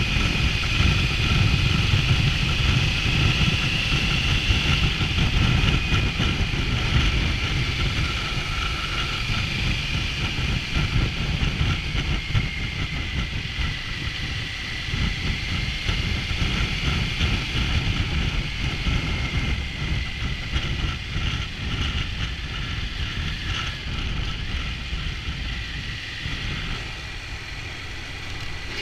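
Triumph Tiger 900's three-cylinder engine running on the move, with heavy wind rush on the microphone. Its whine drifts slowly lower and the overall sound eases off, as the bike slows.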